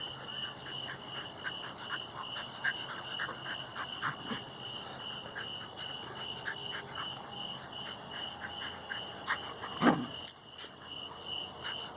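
Outdoor chorus of frogs and insects: a continuous high-pitched trill with many short croaking calls over it. One short, louder sound stands out about ten seconds in.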